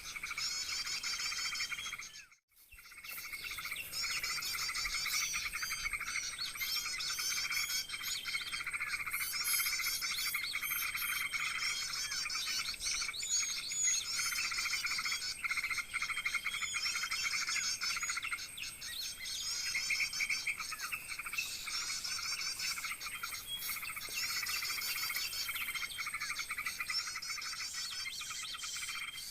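Ciblek gunung (prinia) calls: rapid chirping and trilling phrases, repeated over and over and overlapping. The sound cuts out completely for a moment about two seconds in.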